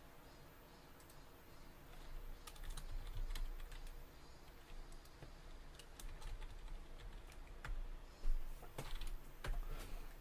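Typing on a computer keyboard: irregular, scattered key clicks, over a low steady hum.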